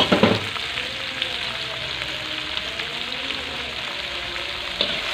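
Chopped tomatoes and red chillies frying in hot oil in a wok with shallots and garlic, a steady sizzle. A few loud knocks of the metal spatula in the wok at the start, and a couple of lighter clicks later.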